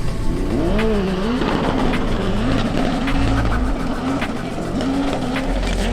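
Racing jet ski engines running at full throttle down a drag course, their pitch climbing about a second in and then wavering unsteadily.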